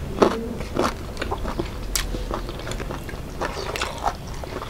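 People chewing and biting into fried chicken and rice: an irregular run of short wet clicks and smacks, the sharpest about a quarter second in.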